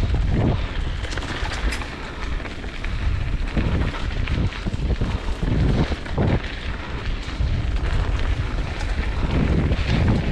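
Mountain bike riding down a dirt trail: wind buffeting the microphone over a rough rumble of tyres on dirt and rocks, with scattered short rattles and knocks from the bike.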